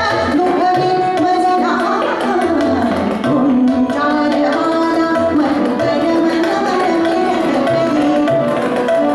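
A woman singing a Marathi natya sangeet song, with a fast ornamented run about two to three seconds in, accompanied by tabla strokes and the steady held notes of an organ.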